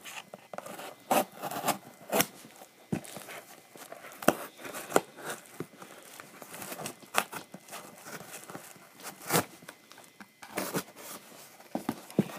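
Cardboard shipping box being torn and pried open by hand: irregular tearing, scraping and crinkling, with scattered sharp snaps.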